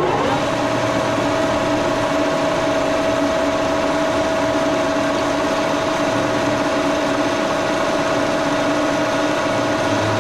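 1942 Brown & Sharpe No. 2 plain milling machine running at speed, its spindle and gearing giving a steady whine with two constant pitches over a mechanical rumble.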